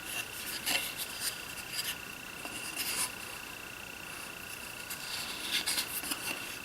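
Short clicks, taps and rubbing of wooden toolbox parts being handled and fitted, in three brief clusters, over a faint steady high-pitched tone.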